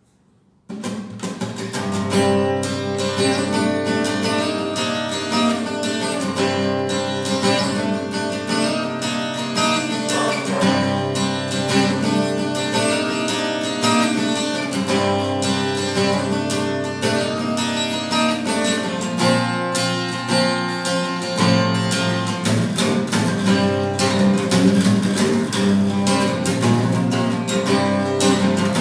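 Acoustic guitar played with a mix of plucked notes and strummed chords, starting abruptly under a second in.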